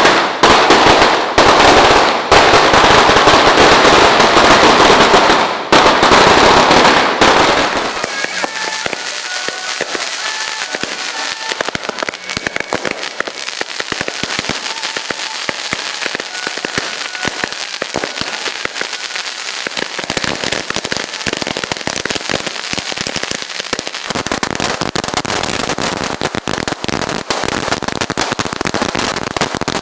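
A long string of firecrackers going off in rapid, continuous crackling. It is loudest and densest for the first eight seconds or so, thins out through the middle, and picks up again near the end.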